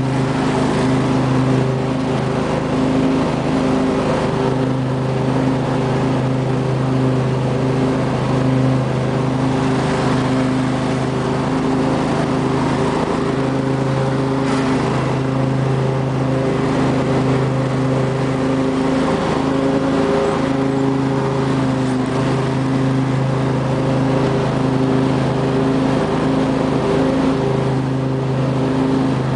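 2005 Husqvarna lawn tractor's 24 hp Briggs & Stratton V-twin engine running at a steady speed under mowing load, an even, unchanging drone.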